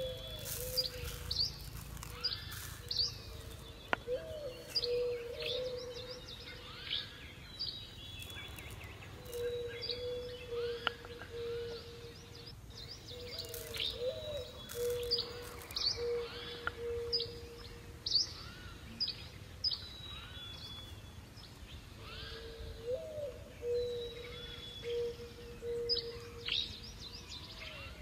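Birds chirping, many short high calls a few times a second, over a lower steady note that breaks off and comes back.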